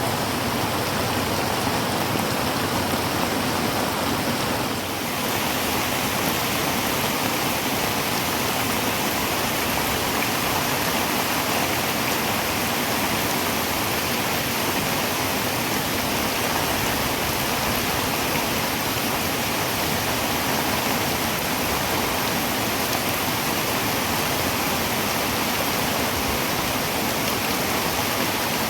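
Heavy rain falling on a tin roof: a steady, dense hiss, with a brief dip in level about five seconds in.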